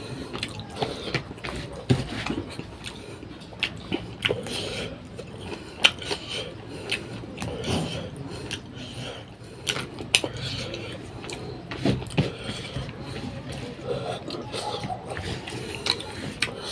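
Close-up eating sounds: chewing and smacking, with frequent irregular sharp clicks and taps of a dish or utensil.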